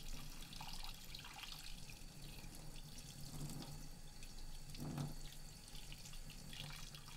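Kitchen tap running in a steady stream into a stainless steel sink, splashing over hands and a gutted fish as it is rinsed, with a slightly louder splash about five seconds in.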